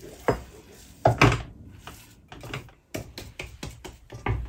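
Wooden spatula knocking and scraping in a pan as mashed potato is worked into a thick dough: a series of irregular knocks.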